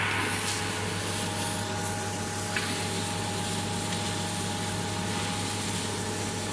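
Biomass sawdust briquette machine running steadily: the electric motor hums while the screw presses sawdust through the heated extrusion barrel and pushes out smoking briquette rods, with an even hiss over the hum.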